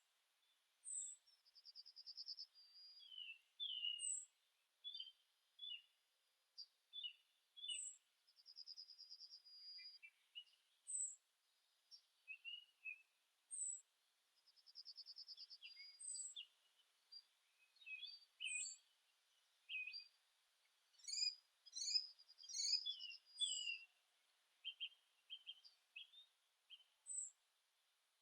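Faint songbirds singing and calling: a short high call repeats every two to three seconds over quick trills and scattered chirps, with a denser cluster of notes a little past the middle.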